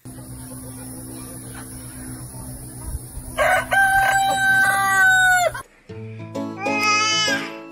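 Rooster crowing once, starting about three and a half seconds in: a long, steady call that breaks off with a drop in pitch after about two seconds.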